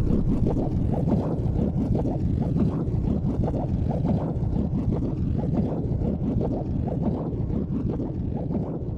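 Creek water flowing and gurgling: a steady low rush with rapid bubbling flickers throughout.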